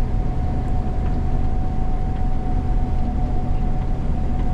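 Gleaner combine running steadily while harvesting soybeans, heard from the cab: a steady low engine and machinery drone with a thin, constant whine over it.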